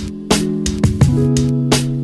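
Background music: plucked guitar with a steady beat of drum hits.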